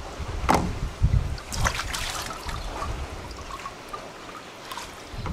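Scissors and wet hands working a raw mullet roe sac: a sharp click about half a second in, a couple of heavy knocks a moment later, then scattered wet rustling and small clicks.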